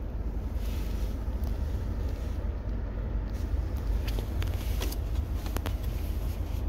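Steady low rumble of the pickup's engine idling, heard from inside the cab, with a few faint clicks.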